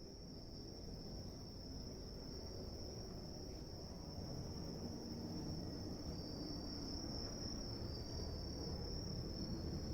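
Crickets trilling steadily, a continuous high-pitched insect chorus. Underneath, a low rumbling noise slowly grows louder.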